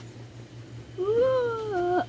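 A single drawn-out vocal call about a second long, starting halfway in, rising a little and then sliding down in pitch.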